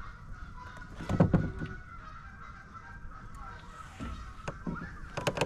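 Geese honking repeatedly, with a loud burst of calls about a second in and more calls in the last second and a half.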